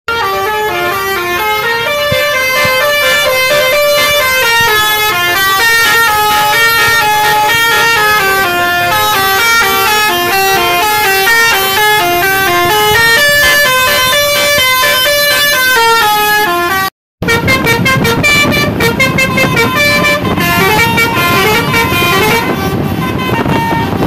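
A bus's basuri telolet horn playing a multi-note tune, one held tone stepping to the next in a running melody. About 17 seconds in there is a brief cut, and then the horn plays a quicker, choppier run of notes.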